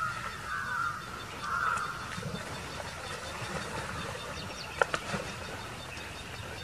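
Short animal cries and calls from a pack of dholes (Indian wild dogs) attacking a sambar deer in shallow water, mostly in the first two seconds, with a couple of sharp clicks about five seconds in.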